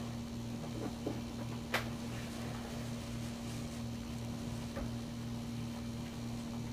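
Steady mechanical hum at one pitch with a regular pulsing drone underneath, and a single sharp click a little under two seconds in.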